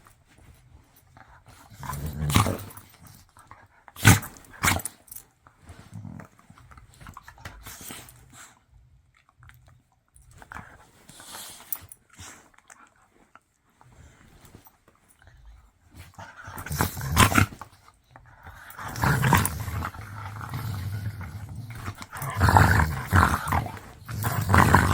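Dogs growling and grumbling on and off, louder and busier in the last several seconds, with a few sharp knocks about four seconds in.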